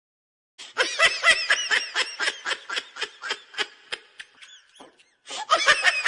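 High-pitched laughing sound effect: rapid ha-ha pulses about four a second that tail off over about four seconds. A second burst of laughter starts near the end.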